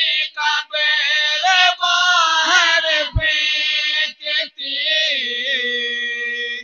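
A group of men chanting the verses of an Urdu naat (a devotional poem in praise of the Prophet) together, unaccompanied and into microphones. The phrases come in short sung lines, and the last note is held for about a second and a half before it cuts off sharply near the end.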